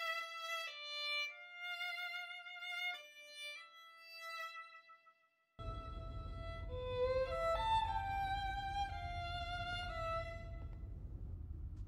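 Solo violin playing a slow melody of held notes. It breaks off about five seconds in, then bowed notes with sliding pitches resume over a low steady rumble and die away near the end.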